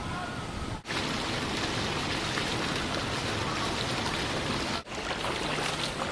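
Steady hiss of falling and running water in a flooded street, dropping out briefly twice, just under a second in and about five seconds in.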